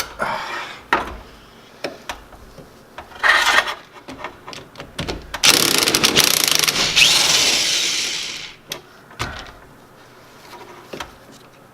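Hand-tool work on the steering shaft coupler at a BMW E30's steering rack spline: scraping and rubbing with a few sharp knocks. Near the middle comes a loud, steady hiss lasting about three seconds, then fading out.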